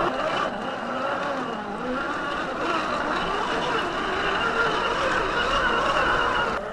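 Brushed 540 electric motor and gear drive of a 1/10-scale RC crawler, whining steadily. The pitch wavers up and down with the throttle.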